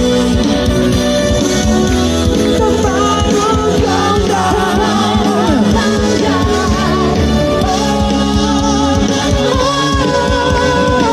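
Pop song: a singing voice with vibrato over a band and a steady beat.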